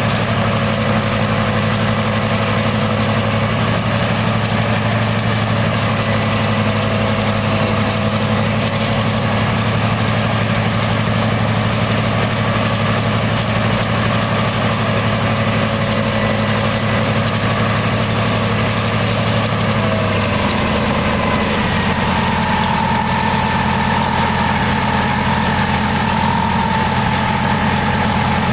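B-24 Liberator's Pratt & Whitney R-1830 Twin Wasp radial engine running steadily on a test stand, propeller turning. Its note shifts about two-thirds of the way through, and a higher tone comes in.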